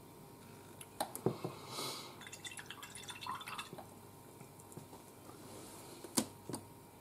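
Small clicks and light knocks of a painted figure bust and a paintbrush being handled and set down, with a brief rustle and a run of tiny ticks; the loudest is a sharp click about six seconds in.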